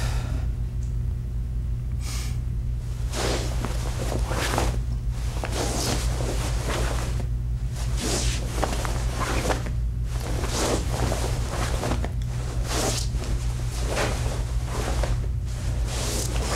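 A martial artist performing a kata alone: quick, irregular swishes of the uniform and sharp breaths with each strike and block, over a steady low hum.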